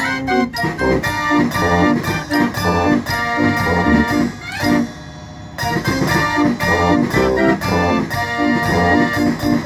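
Mechanical fairground organ playing a lively tune with a steady beat, dipping briefly about five seconds in before carrying on.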